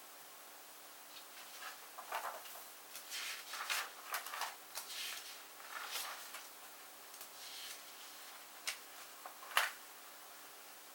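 Stiff ring-binder pages being lifted and turned, rustling and flapping for several seconds, then two sharp snaps near the end, the second the loudest sound.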